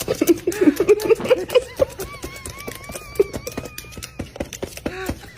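A parrot making rapid clicking sounds, with short squawky vocal sounds at first and then a thin warbling whistle for about two seconds.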